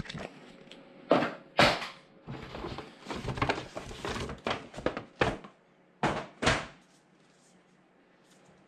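Paper shopping bag rustling and crinkling as it is handled and a cardboard gift box is pulled out of it. There is a series of sharp crinkles and knocks, the loudest a pair about a second in and another pair about six seconds in.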